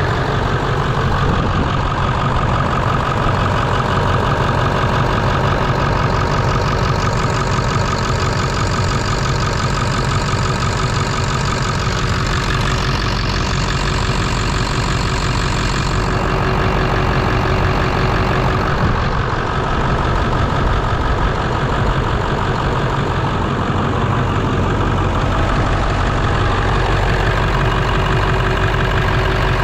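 Early 1999 Ford 7.3-litre Power Stroke V8 turbodiesel idling steadily on a cold start. The owner takes its better idle for a sign that two sticky injectors have been knocked loose by buzz-testing them cold.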